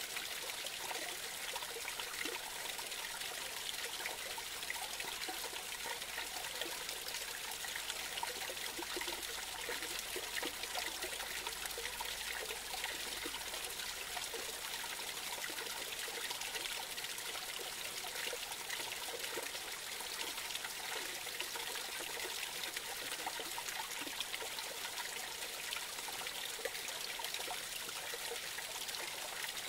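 Small creek trickling and splashing over a short cascade, a steady babble of water.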